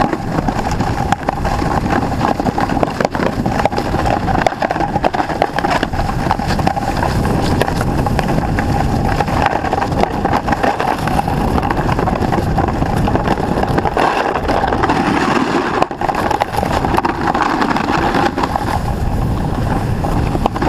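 Snowboard running fast over packed snow, a steady rushing scrape with wind buffeting the action camera's microphone, and a faint steady tone underneath.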